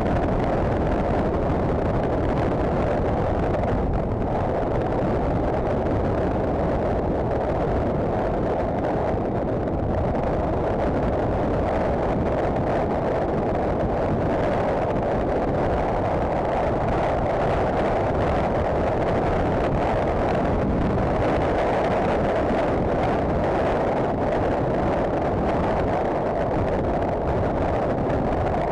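Honda CBF1000 motorcycle cruising at a steady speed: a constant, even rush of wind and road noise with the engine underneath.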